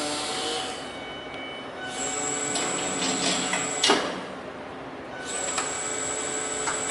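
Forklift lift mechanism running in two runs of about two seconds each, a steady high whine over a hiss as the load is raised, with a sharp metallic clank about four seconds in.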